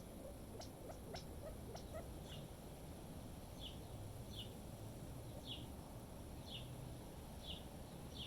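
A small bird's short, high chip calls, each dropping slightly in pitch, repeated about once a second from a few seconds in, over a low wind rumble on the microphone. A few faint clicks sound in the first two seconds.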